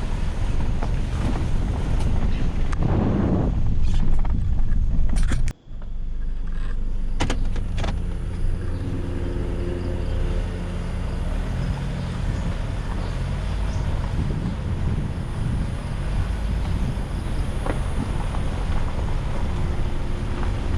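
Ford Escape 4x4 driving, heard from inside the car: a steady rumble of engine and tyres. About five and a half seconds in, the sound cuts out for a moment, then a steady engine hum comes back.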